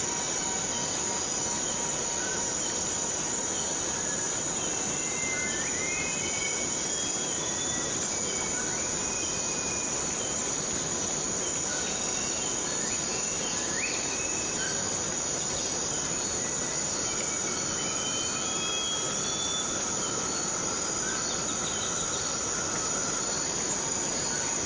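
Steady rainforest rain with a constant high-pitched insect drone over it, and scattered short chirps and whistles from other animals.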